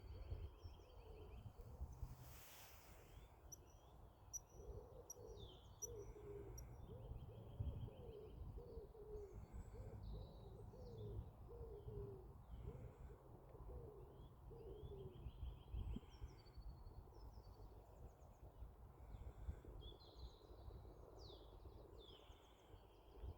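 Faint birdsong: several small birds chirping and trilling. A run of low, evenly repeated calls, about two a second, goes on through the first half or more and then stops.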